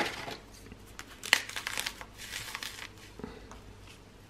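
Small meringue cookies being crushed by hand, giving a few short, dry crackles and crunches, the sharpest about a second and a half in.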